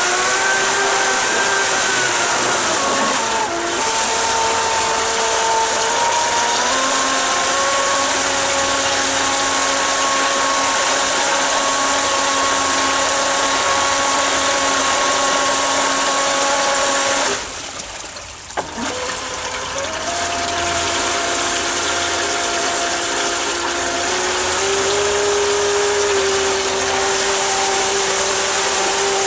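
Electric jet-drive motors of a DIY jet surfboard running under throttle in a test tank, pumping a churning jet of water. A steady motor whine steps up and down in pitch with the throttle over the rush of water. A little past halfway it drops away for about a second and a half, then picks up again at a lower pitch and steps up once more.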